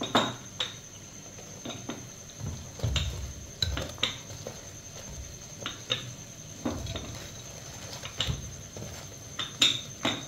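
Metal cooking utensil clinking and knocking against a pan: a dozen or more irregular sharp clinks, the loudest near the start and again near the end.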